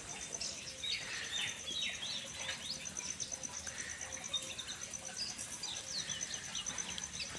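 Birds chirping with many short quick calls, over a steady, evenly pulsing high insect trill.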